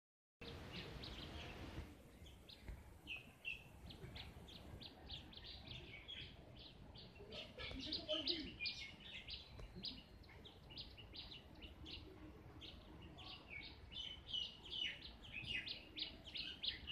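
Birds chirping: many short, quick chirps overlapping one another, faint. A soft hiss comes first and lasts about two seconds.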